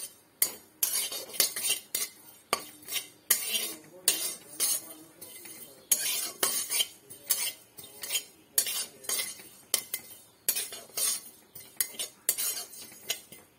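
Metal spatula scraping and stirring cumin seeds around an aluminium kadai (wok), in repeated sharp scrapes roughly two a second.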